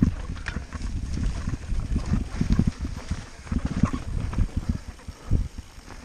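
Mountain bike rolling fast down a rough dirt singletrack: tyres rumbling over the ground, with an uneven clatter of knocks and rattles from the bike as it hits bumps and rocks.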